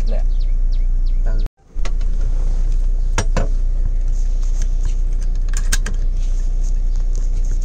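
Steady low rumble, with small birds chirping during the first second and a half. The sound drops out briefly, then a few sharp clicks come about three and six seconds in.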